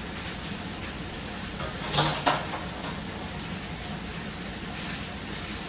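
Steady hiss of food sizzling in a pot on the stove, with two sharp clinks of a utensil against cookware about two seconds in.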